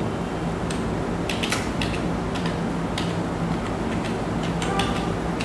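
Irregular sharp clicks of keys being pressed as a password is typed in, a few in quick succession and others spaced out, over a steady low hum.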